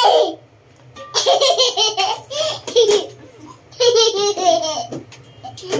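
A young child laughing in two bouts of quick, repeated giggles, the first starting about a second in and the second near the four-second mark.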